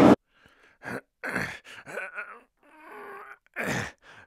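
A loud clip cuts off abruptly just after the start, then a person's voice makes about six short wordless sounds with dead silence between them.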